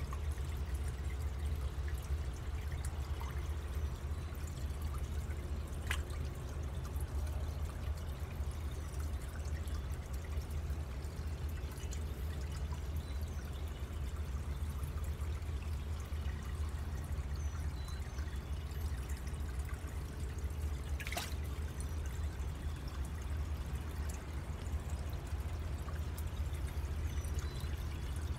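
Water pouring and trickling steadily into a garden lily pond, with a low rumble underneath.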